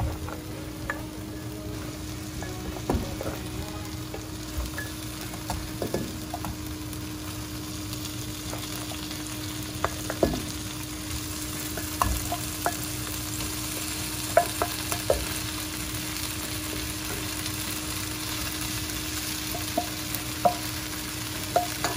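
Onion masala sizzling in a non-stick frying pan as fried rui fish pieces are set into it one by one, with scattered light knocks and taps in the pan. The sizzle turns brighter about halfway through.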